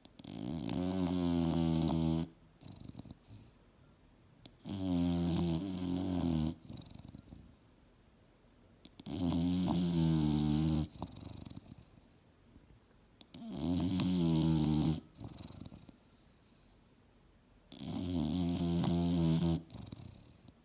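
English bulldog snoring in deep sleep: five long, regular snores, each about two seconds, coming some four and a half seconds apart.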